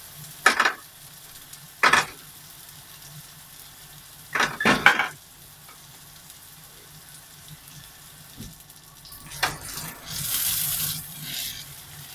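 Nori-wrapped chicken-mince rolls sizzling in a frying pan on a gas burner. The pan is shaken about four times, each a short loud scrape, and the sizzling grows louder near the end.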